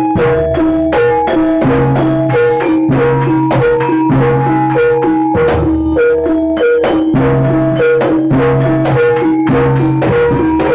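Jaranan accompaniment music from a Javanese gamelan-style ensemble: drum strokes over a repeating, interlocking pattern of struck, ringing metal pitched percussion, played at a steady, even pace.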